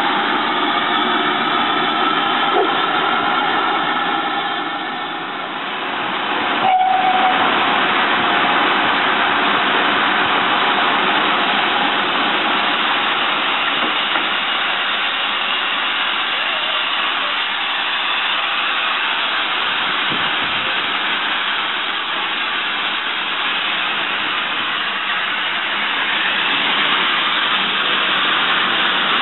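GWR 5600-class 0-6-2 tank locomotive 5643 hissing steam from around its cylinders, then, after a sudden cut about seven seconds in, a steady loud rush of steam and rail noise as it pulls its train away.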